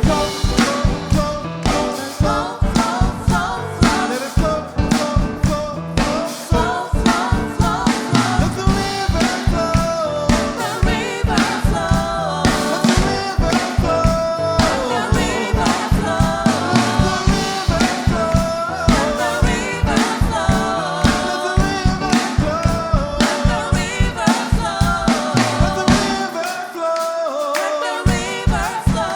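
Live worship music: a worship band with drum kit keeps a steady beat under singing voices. The bass and kick drop out briefly near the end.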